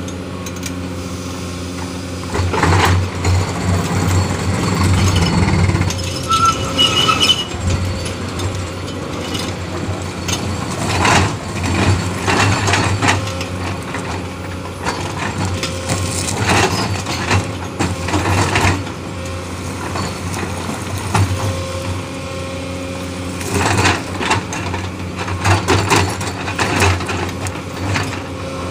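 Hydraulic rock-breaking attachment on a Komatsu excavator pounding and grinding into quarry rock in several spells, with the excavator's diesel engine running steadily underneath.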